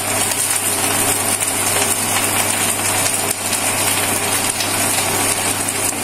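Katla fish pieces frying in mustard oil on a banana leaf in a pan, sizzling steadily, with a metal spatula scraping and knocking as the pieces are turned. A steady low hum runs underneath.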